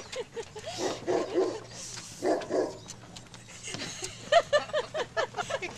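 Dog whining and yipping in short, high cries that rise and fall, coming thick and fast in the second half.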